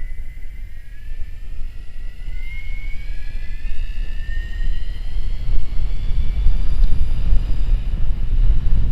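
Electric mountain bike's motor whining, rising steadily in pitch as the bike speeds up, over heavy rumbling wind buffeting on the microphone that grows louder about halfway through.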